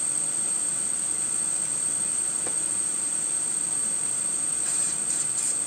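A steady high-pitched electronic whine over a low hiss, with a few faint clicks near the end.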